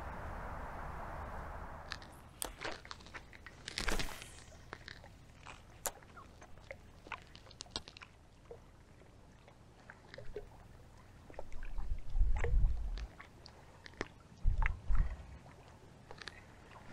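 Scattered light clicks and crunches from rod, reel and tackle being handled during a retrieve. Two low rumbles of wind on the microphone come in the second half. The opening two seconds are a steady rushing noise, cut off abruptly.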